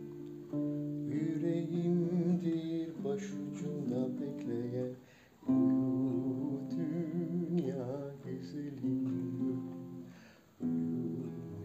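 A man singing a Turkish lullaby to his own classical guitar accompaniment, with vibrato on the held notes. The music fades out twice, about five seconds in and again near the end, between phrases, and each time picks up again.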